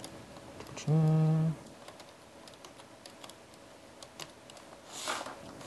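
Light clicks and taps of a laptop optical drive being pushed along and seated in its bay. A person gives a short hummed 'mm' about a second in.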